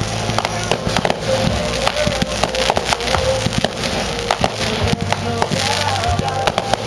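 Aerial fireworks going off in rapid, irregular succession: many sharp cracks and bangs, with music playing.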